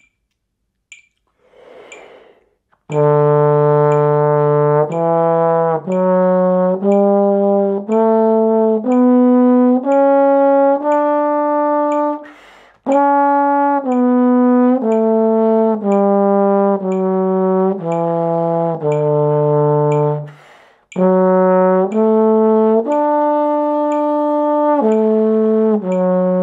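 Tenor trombone playing the D major scale and arpeggio in the all-state pattern at 60 beats a minute: half notes on D and quarter notes stepping up and back down, with breaths between the runs. A faint metronome tick sounds once a second.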